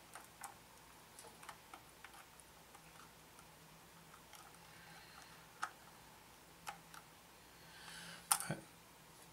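Faint, irregular clicks and taps of a plastic scale model aircraft being handled at its nose and cowling, with a sharper click and a brief rustle a little after eight seconds in.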